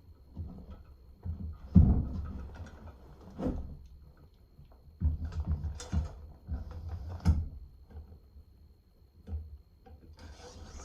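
Irregular knocks and rustling in scattered clusters, with heavy low thumps, the loudest about two seconds in.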